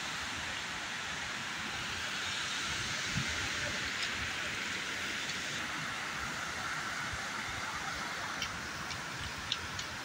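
Steady rush of falling water from a large waterfall, with a few faint clicks near the end.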